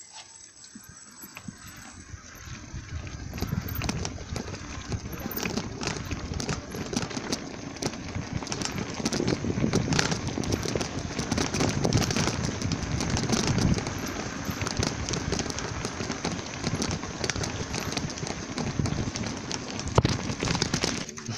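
Bicycle rattling and clattering as it rides over cobblestone paving: a dense run of small knocks over a steady rush, louder after the first couple of seconds.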